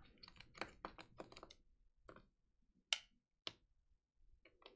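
Faint irregular clicks and taps of small parts being worked while a MacBook logic board is taken out of its enclosure. A quick run of clicks in the first second and a half, then two sharper single clicks about three and three and a half seconds in.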